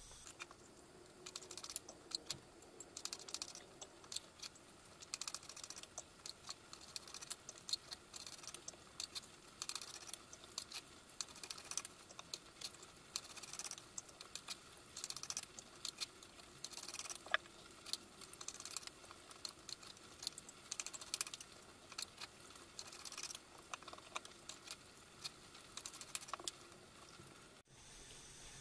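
Light, irregular clicks and taps, several a second, from fresh long red chili peppers being cut up and their pieces dropped into a glass bowl.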